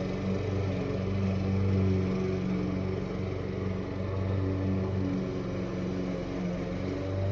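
Small petrol engine of a lawn mower or string trimmer running steadily, its pitch wavering slightly.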